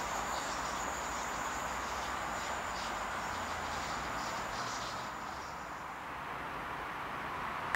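Class 323 electric multiple unit running away down the curving line with a steady rail noise, and a high pulsing insect chirr over it that stops about six seconds in.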